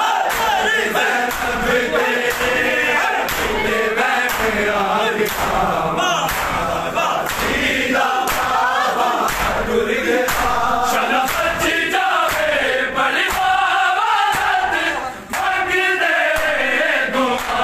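A crowd of men chanting a noha together, over a steady beat of sharp slaps from hands striking bare chests in matam. The sound drops briefly about 15 seconds in.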